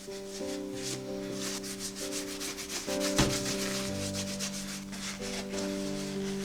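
Rapid back-and-forth scrubbing strokes against a hard surface, as in cleaning out a cupboard, with one sharp knock about three seconds in. Soft background music with held notes plays underneath.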